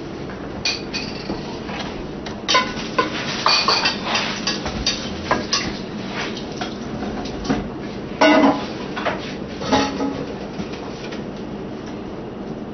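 Dishes and cooking utensils clinking and knocking, in irregular clatters over a steady background noise. The busiest stretch is about two and a half to four seconds in, with louder knocks about eight and ten seconds in.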